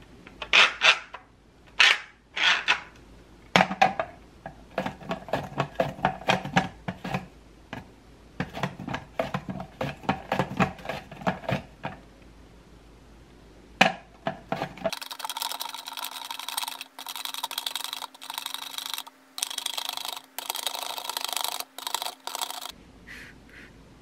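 Cucumber being sliced on a plastic mandoline slicer over a stainless steel bowl: a few sharp clicks as the slicer is handled, and runs of quick repeated rasping strokes as the cucumber is pushed across the blade.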